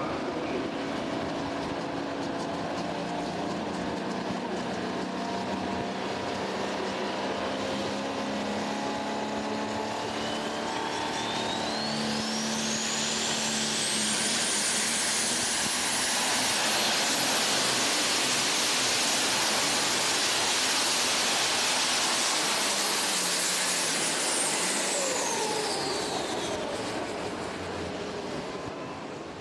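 Turbocharged super stock diesel pulling tractor under full power on a pull: the engine note runs beneath a turbo whine that climbs steeply to a very high pitch about a third of the way in and holds there, at its loudest, then winds down near the end.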